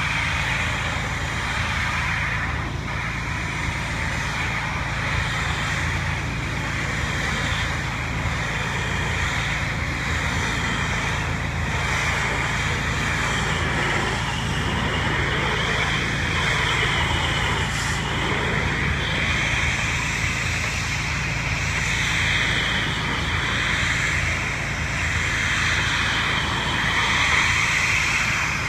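Pressure washer running steadily with the hiss of its water spray.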